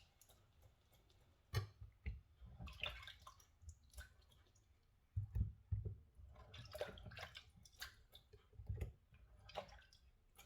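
Peeled potatoes being washed by hand in water: light intermittent splashing and dripping, with occasional dull knocks of potatoes against the bowl.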